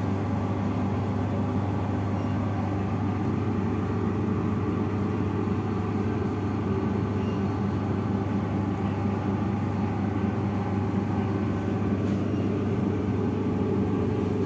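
A steady low machine hum with a faint hiss, unchanging in level.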